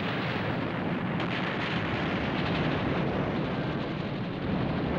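Steady, dense rumbling roar of explosion and battle sound effects, swelling slightly near the end.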